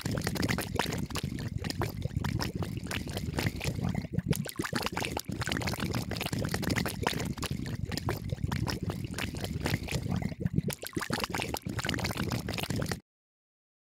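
Water pouring and trickling into a plastic L.O.L. Surprise capsule, with a close, dense crackle of bubbles as the fizzing contents foam up pink. The sound cuts off suddenly near the end.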